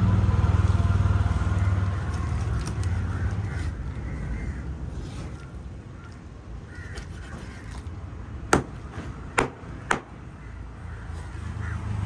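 A knife striking a wooden cutting board three times in quick succession, sharp knocks under a second apart, over a low vehicle engine rumble that fades out in the first few seconds.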